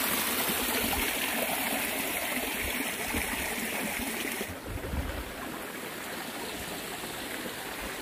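Water running and splashing over the rocks of a small stone cascade in a garden stream, a steady babble that turns quieter and duller about halfway through.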